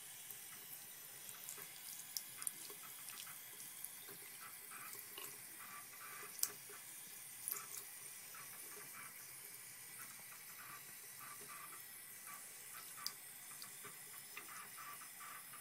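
Quiet, steady running and splashing of bath water, with many small spatters and a few sharper splashes or knocks, the loudest near the middle.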